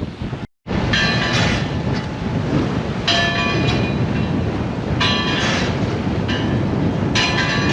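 A navigation bell buoy clanging unevenly as it rocks in the waves: clusters of two or three ringing strikes about every two seconds, over steady wind and water noise. It sounds like it's having a bad day.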